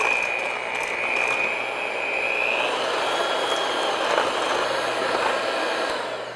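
Electric hand mixer running at speed, its beaters whipping eggs and sugar in a stainless steel bowl until the mix turns pale and begins to thicken. The motor gives a steady high whine over the whir of the beaters, and the whine shifts slightly higher about three seconds in.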